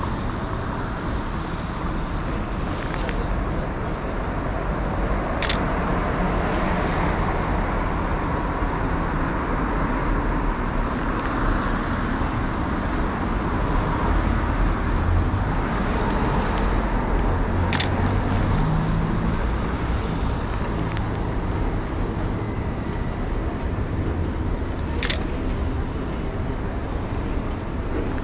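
Steady city street traffic noise: passing cars and general road rumble. Three sharp single clicks of a Sony A7R2's shutter stand out, about five, eighteen and twenty-five seconds in.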